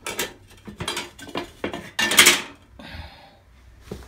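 Household objects being handled and set down: a run of irregular knocks and clatters, the loudest about two seconds in, followed by a brief scraping rustle.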